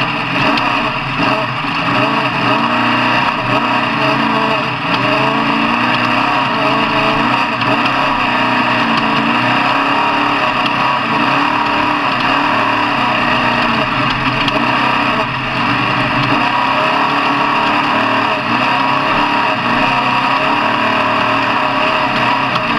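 Off-road truck engines running and revving, their pitch rising and falling again and again.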